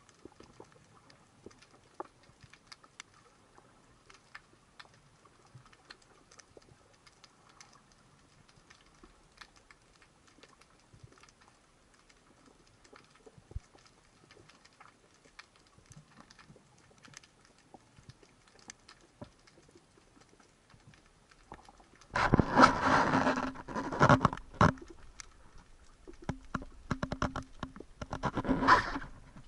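Faint, continuous underwater crackling and clicking. Near the end come two louder bursts of rushing noise, each a few seconds long, with a steady low hum.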